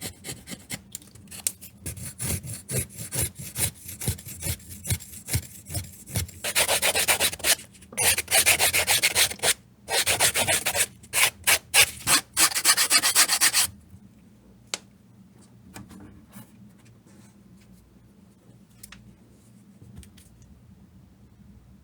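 Hand rubbing and rasping strokes on leather: separate strokes for the first six seconds or so, then a stretch of fast continuous rubbing that stops about fourteen seconds in, leaving only a few faint ticks.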